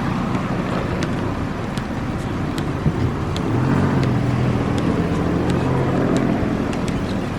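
A road vehicle passing: a steady low rumble with an engine hum that swells from about three and a half seconds in, and scattered faint clicks.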